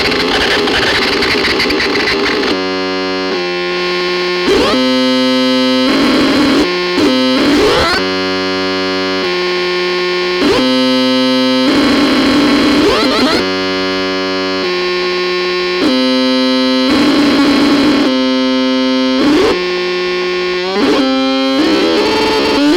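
Harsh, distorted synthesizer opening with a couple of seconds of dense noise, then playing buzzy held notes that change pitch every second or two, with quick pitch sweeps between some of them.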